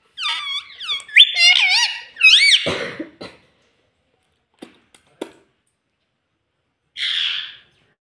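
Rose-ringed (Indian ringneck) parakeet giving a quick run of squeaky whistled calls that glide up and down in pitch for about three seconds. A few faint clicks follow, then a short hiss near the end.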